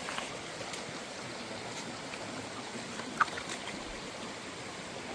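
Rainforest creek water flowing in a steady rush, with a few faint clicks and one sharper tick about three seconds in.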